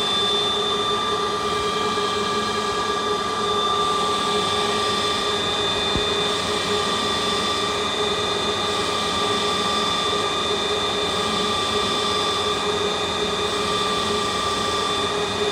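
Metal lathe running at steady speed, turning a steel osteotome handle, with a constant machine whine of several held tones over a steady mechanical hum.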